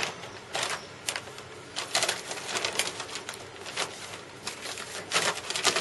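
Clear plastic bags and nylon wrapping crinkling and rustling in irregular bursts as they are handled.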